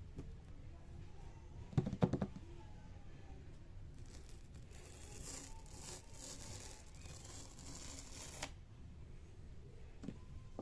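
Packaging of an iPad box being handled and torn open: a few knocks about two seconds in, then a long tearing rasp that stops abruptly near the end.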